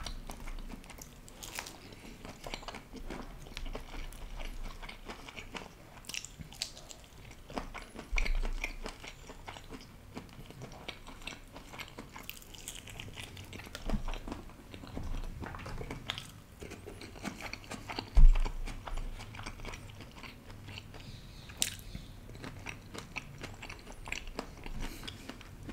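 Close-miked chewing and biting of grilled meat and prawns, with many short clicking crunches. A few dull low thumps stand out, the loudest about eight and eighteen seconds in.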